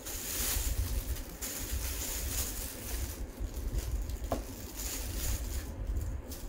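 Plastic carry bag rustling as a wrapped takeaway coffee cup is pulled out and set down on a table. A low rumble runs underneath, and a short squeak comes about four seconds in.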